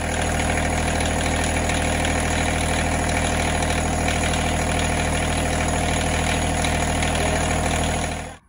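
John Deere 1026R compact tractor's three-cylinder diesel engine idling steadily on fresh oil, run for about a minute after an oil and filter change so the oil circulates before the level is rechecked. It cuts off abruptly near the end.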